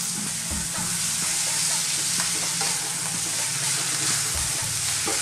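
Chopped vegetables (carrot, onion, sweetcorn and spinach) sizzling in a hot non-stick frying pan while a wooden spatula stirs them, with light scrapes and taps of the spatula in the pan. A faint steady low hum runs underneath.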